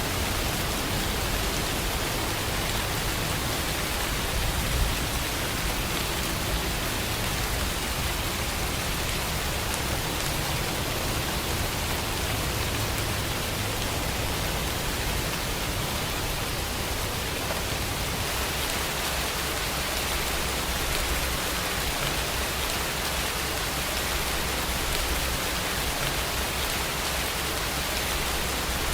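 Steady rainfall, an even, unbroken hiss of many drops.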